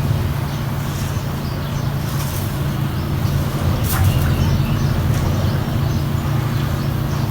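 A motor running steadily with a low, even hum, with a brief sharp click about four seconds in.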